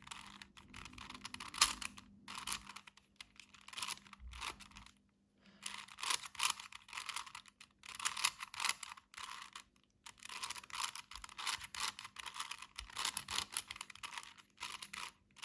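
Plastic layers of a 4x4 Rubik's cube being turned fast, a dense clicking and clacking in quick runs with short pauses about five seconds in and again near ten seconds. The turns work through the long special algorithm needed to fix a last-layer cross that can't be made the ordinary way.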